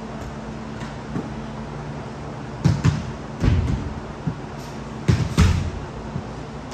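A ball being struck hard in an indoor game, with sharp thuds: a quick pair, a single, then another quick pair. They sit over a steady hall hum.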